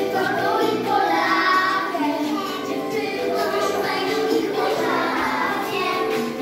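A children's song with young voices singing over a musical accompaniment.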